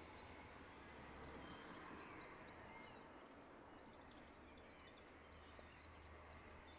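Near silence: faint room tone with a low steady hum and a few faint, short high chirps.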